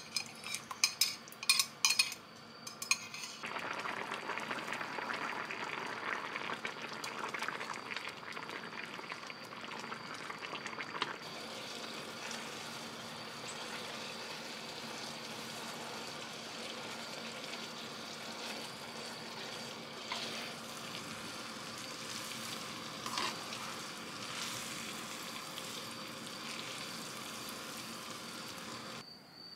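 Sauce simmering and sizzling in a stainless steel frying pan as spaghetti and vegetables are stirred through it with chopsticks. A steady hiss runs throughout, with several sharp clicks in the first few seconds and a few light taps of chopsticks against the pan later.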